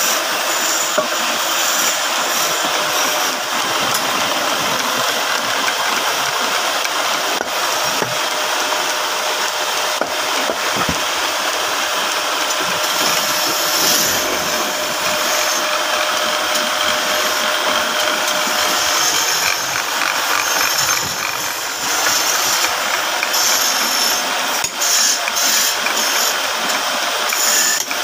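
Belt-driven wood lathe running while a hand-held chisel cuts into a spinning wooden blank, roughing it from square to round: a steady, loud scraping hiss of wood being turned.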